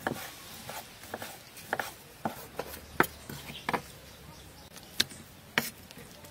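Kitchen knife slicing raw pork on a wooden cutting board: a series of sharp, irregular knocks of the blade against the board, most of them in the first few seconds.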